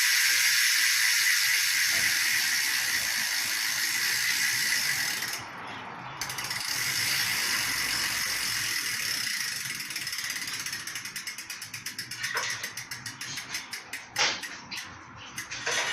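A Quando cassette hub on a BMX rear wheel freewheeling: the pawls click so fast they blend into a steady buzz, then slow into separate, more widely spaced clicks as the wheel spins down. A few louder knocks come near the end.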